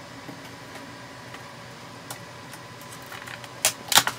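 Light taps, then a quick run of sharp plastic clicks near the end, from a server memory module (DIMM) being handled and its slot latches being worked, over a steady low hum.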